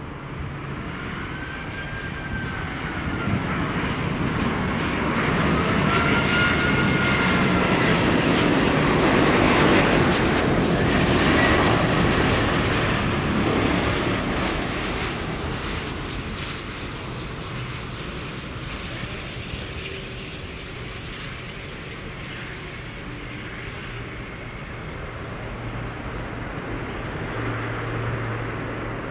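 Jet airliner passing close on its landing approach: engine noise that swells to its loudest about ten to twelve seconds in and then slowly fades, with high whines that rise and fall in pitch as it goes by.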